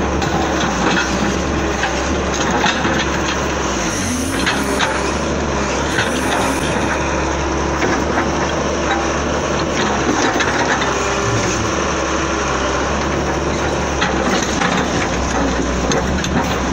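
Heavy excavator diesel engine running, with scattered clanks and knocks of machinery at work.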